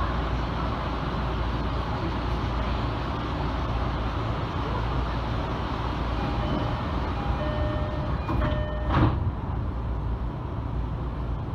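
Steady low hum inside a standing electric commuter train. A few short beep-like tones sound about six to eight seconds in, followed by a brief loud noise at about nine seconds.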